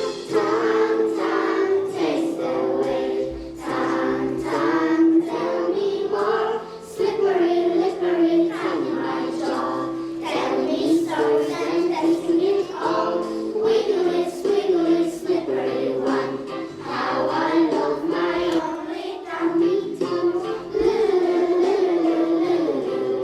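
A group of young children singing an English song together in unison, over instrumental backing.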